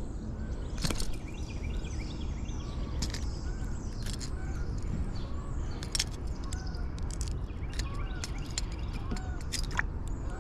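Outdoor creek-side ambience: a steady low rushing noise, with birds calling in short repeated chirps and a scattering of sharp clicks and taps.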